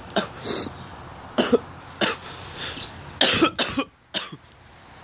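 A person coughing in a run of short, harsh coughs over about four seconds, the kind of coughing fit that follows inhaling cannabis smoke.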